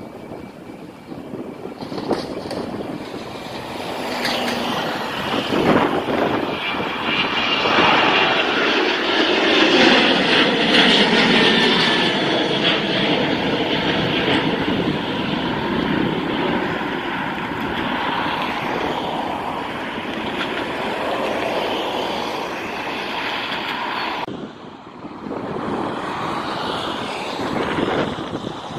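Ryanair Boeing 737-800's twin turbofan engines at takeoff power, growing louder as the jet rolls and climbs away, its roar sweeping down in pitch as it passes. The sound cuts off abruptly about four seconds before the end and a quieter jet rumble follows.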